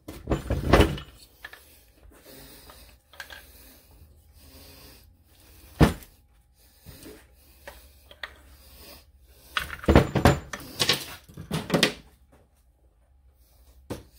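Clunks and knocks of a bolted-together two-stroke Yamaha crankcase being handled and turned over on a workbench. There is a group of knocks at the start, one sharp knock about six seconds in, and a cluster of clatter around ten to twelve seconds.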